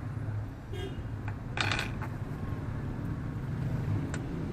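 Tableware clinking: one short ringing metallic clink about one and a half seconds in, then a couple of faint ticks, over a steady low hum.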